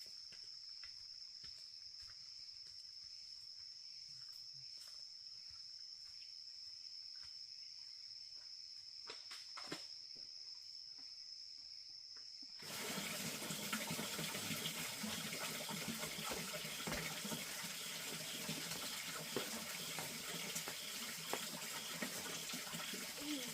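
A steady, high-pitched insect drone with a few soft clicks, then, about halfway through, an abrupt cut to louder running, splashing water.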